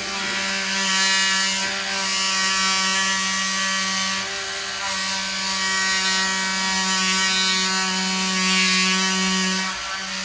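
Handheld rapid-release vibration therapy device buzzing steadily while pressed on the back and neck muscles, a constant electric buzz that briefly eases about four seconds in and again near the end.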